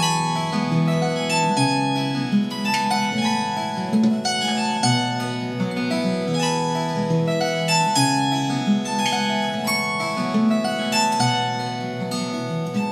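Brunner 20-string harp guitar played fingerstyle: a melody of plucked, ringing notes over bass notes from the unfretted sub-bass strings.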